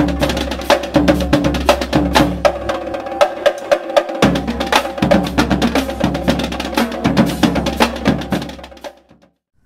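Intro jingle music: fast, busy percussion over a steady bass line, the bass dropping out briefly about four seconds in, the whole fading away near the end.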